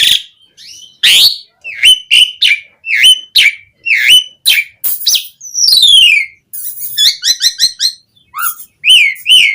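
Asian pied starling (jalak suren) singing loudly: a quick string of varied whistles and chirps, many of them sharp notes that rise and fall. About six seconds in comes a long falling whistle, then a fast run of repeated notes.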